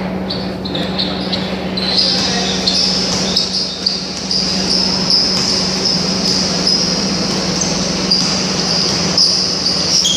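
Basketball game sound in a large hall: a steady low hum, with a high whine that comes in about two seconds in, under a few scattered knocks from play on the court.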